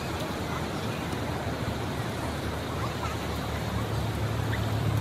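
Beach ambience: a steady wash of surf and wind noise, with a low droning hum that grows louder near the end.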